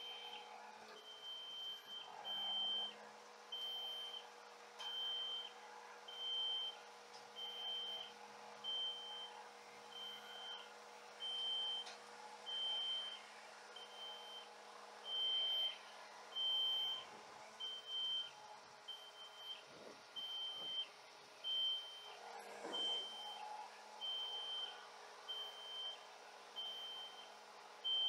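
Palfinger loader crane's warning beeper giving a short high beep about once a second while the crane lifts at 92–93% of its rated load. Underneath runs the steady hum of the Scania G410's engine driving the crane hydraulics.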